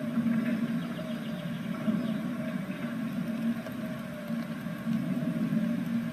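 Steady low hum with a light hiss, and a few faint ticks, the clearest about two seconds in.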